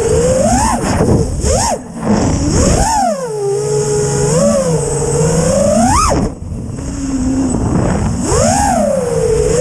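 FPV quadcopter's motors and propellers whining, the pitch sweeping up and down again and again as the throttle is punched and eased. The sound drops away briefly about two seconds in and again about six seconds in, where the throttle is cut.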